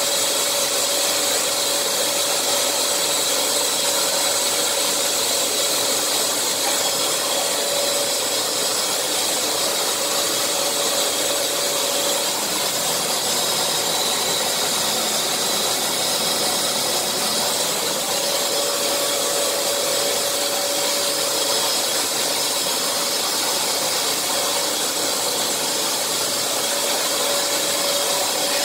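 Makita DSL801 18 V brushless long-reach drywall sander running steadily as it sands a plaster wall and ceiling, together with the air rush of the dust extractor drawing through its hose. A constant motor whine sits over the rushing noise throughout.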